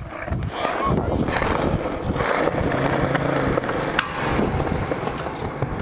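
Skateboard wheels rolling on concrete with a steady rumble, and one sharp clack about four seconds in as the board is popped or lands.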